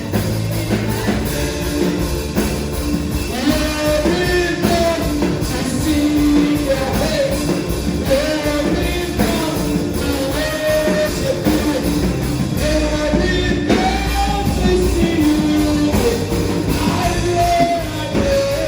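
Gospel worship song: a voice singing a melody over a full band with a steady beat.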